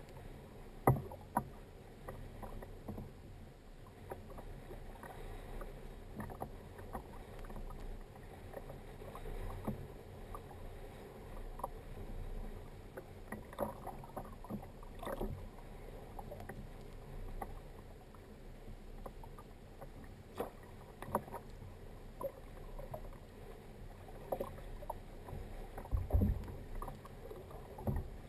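Sea water lapping and slapping against a plastic Hobie Outback kayak hull, with a steady low wind rumble. Irregular small knocks and clicks run through it as a fish is reeled in on a spinning rod, with one heavier thump near the end.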